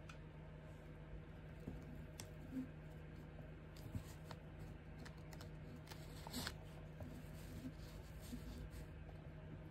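Faint scattered clicks and light taps from a laser-cut wooden pantograph being handled and set on paper, its wooden arms and bolted pivots knocking lightly as it is moved, with a sharper click about six and a half seconds in. A steady low hum runs underneath.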